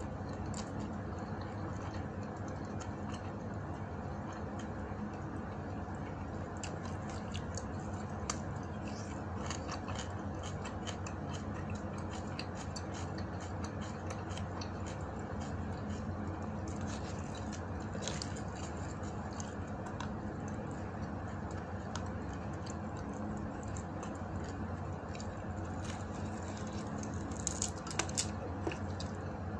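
Eating by hand: faint scattered clicks and crackles of fingers picking at fried dried fish and rice, with a few sharper clicks near the end, over a steady low hum.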